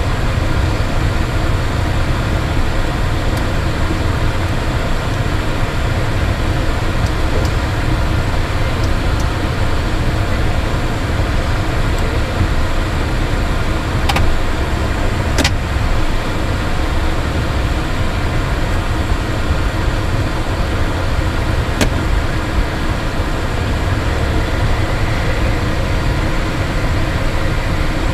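Steady cockpit noise of a Cessna Citation Bravo taxiing: its twin turbofan engines running at low power under a constant low rumble. A few brief clicks come through about halfway and again later.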